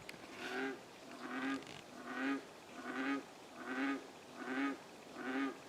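An unidentified animal calling over and over in a steady series, about one short pitched call every three quarters of a second.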